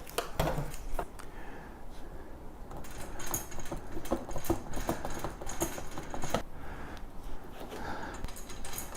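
Knocks and clicks of compost tumbler panels and hardware being handled and fitted together. In the middle there are a few seconds of steady high-pitched mechanical sound, which stops with a sharp knock.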